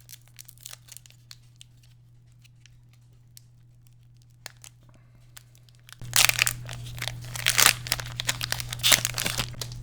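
Light clicks of cards and packaging being handled, then about six seconds in a loud burst of crinkling and tearing for about three seconds as a foil Pokémon booster pack wrapper is ripped open.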